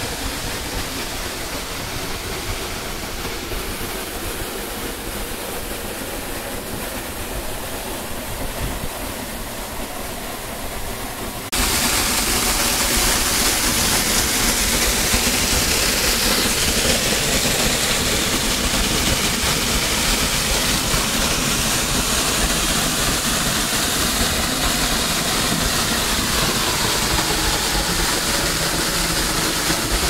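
Rushing water: a steady, full noise of water pouring over rock, which jumps abruptly louder about a third of the way in.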